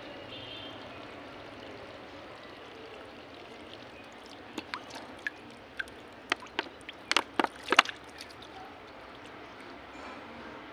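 Thin stream of water trickling out of a hole in the bottom of a plastic water bottle, draining as the bottle draws in cigarette smoke through its cap. About halfway through, a quick run of sharp clicks and taps, the loudest sounds.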